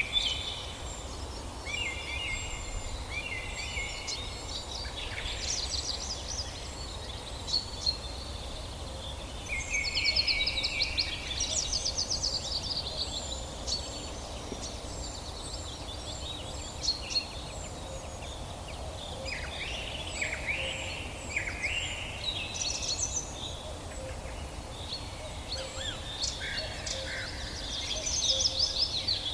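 Several birds singing and calling together: overlapping chirps, trills and warbled phrases, with a steady low hum underneath.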